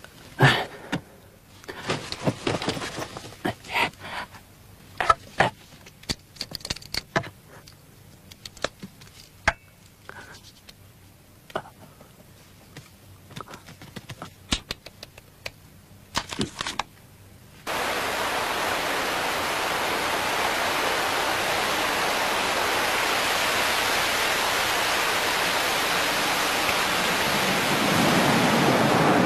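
Handling noises: scattered clicks, knocks and short rustles as a man moves things about an office desk. About 18 s in this gives way suddenly to a steady hiss of street ambience, which grows louder near the end.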